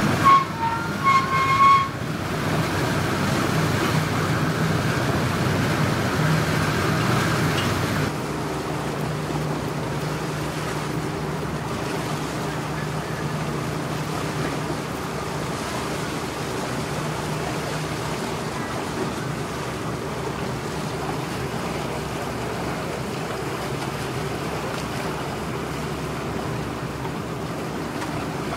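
Boat engines running with a steady low drone over the wash of choppy water, with a few short high tones in the first two seconds. The sound changes abruptly about eight seconds in, and the drone and water continue a little quieter after that.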